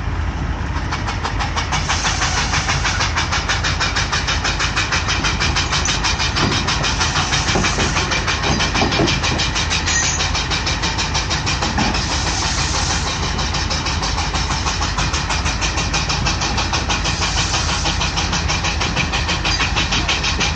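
Steam traction engine working hard under load while pulling a weight-transfer sled: rapid, evenly spaced exhaust chuffs from its stack, building up to full strength about two seconds in.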